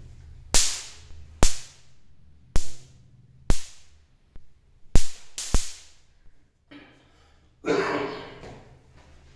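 A series of six sharp, slap-like cracks, irregularly about a second apart, followed near the end by a short rustling noise.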